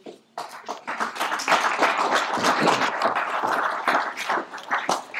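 Audience applauding: many hands clapping at once, starting about half a second in and thinning out near the end.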